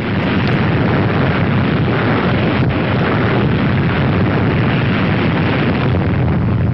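Steady, unbroken rumbling roar of a huge atomic-bomb explosion, loud throughout.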